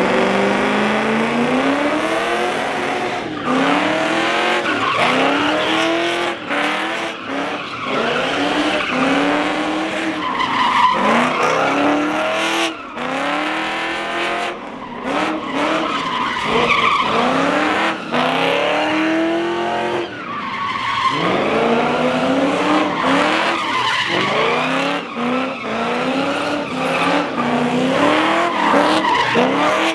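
Cars drifting in a pit: engines revving up and down over and over while the tires squeal through the slides.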